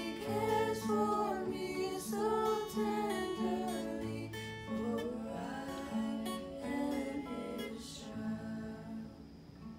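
A small group of voices singing a gospel song together, accompanied by a strummed acoustic guitar. Near the end the singing drops out and the guitar plays on alone.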